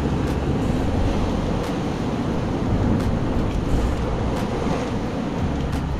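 Wind buffeting the microphone over the steady wash of sea surf on coastal rocks.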